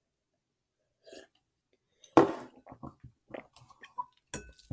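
A person eating and drinking: a sudden loud mouth sound about two seconds in, then a run of short clicks and chewing noises, and a sharp clink of utensil on dish near the end.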